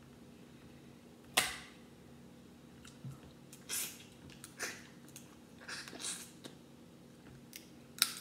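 A boiled crab leg's shell snapped open by hand with one sharp crack about a second and a half in, followed by several shorter, softer sounds of the meat being picked from the shell and chewed. A faint steady hum runs underneath.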